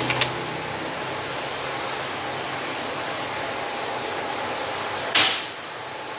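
Glass jars clink briefly as one is lifted from among the others, over a steady hiss; about five seconds in, a short loud scrape as a plastic spoon goes into the glass jar of set yogurt.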